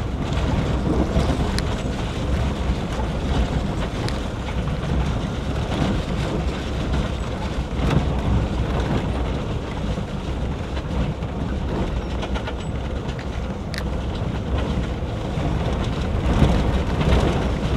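A vehicle driving on a rough rural road: steady engine and tyre rumble with rattling, and a couple of brief knocks about eight and fourteen seconds in.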